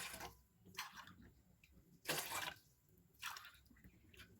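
Water poured from a tumbler into a cooking pot in about four short splashes, each about a second apart, filling the pot with cold water for a herbal kadha.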